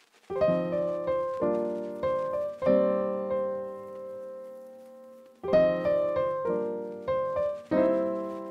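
Background piano music: a series of struck chords, with one chord about a third of the way in left to ring and fade for a few seconds before more chords follow.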